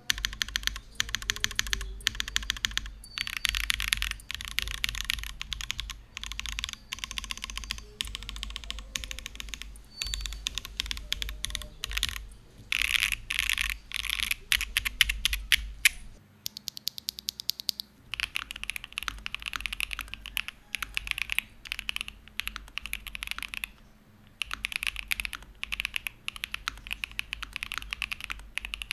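Typing test on a mechanical keyboard, an Akko U01 fitted with Akko Starlit linear switches and double-shot PBT keycaps: a fast, continuous run of key presses with punchy, fairly deep clacks. The typing eases off briefly a little past halfway, and there is a short pause later on.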